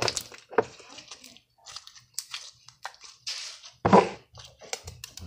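Hands squishing, pressing and stretching pink slime: an irregular run of wet clicks and pops, loudest at the start and again about four seconds in.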